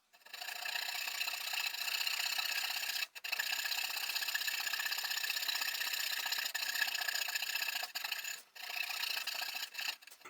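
Electric jigsaw cutting through a wooden strip, a steady fast rasp of the blade, stopping briefly about three seconds in and twice near the end.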